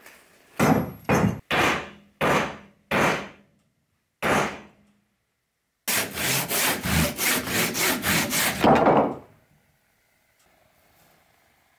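Handsaw cutting through a birch burl: six separate push strokes, then after a short break a faster run of strokes at about three a second, which stops about nine seconds in.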